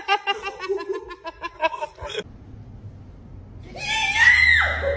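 A person laughing hard in quick repeated bursts. After a short lull, a loud high-pitched cry that holds and then falls in pitch.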